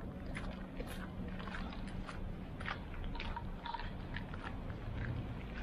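Footsteps crunching on packed snow and slush at a walking pace, a short crunch about every half second, over a low steady rumble.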